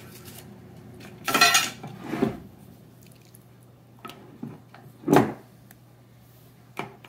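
Metal utensils clinking and scraping against a glass jug while chocolate ganache buttercream is scooped out, with a loud clatter about a second and a half in and another knock about five seconds in.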